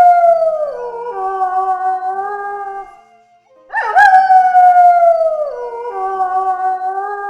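Wolf howling: two long howls, each rising quickly, sliding slowly down, then holding a lower steady note before breaking off. There is a short pause between them.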